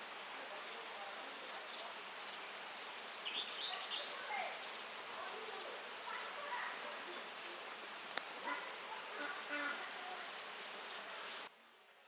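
Steady drone of insects outdoors, with several short bird chirps scattered through it and one sharp click. The sound cuts off abruptly just before the end.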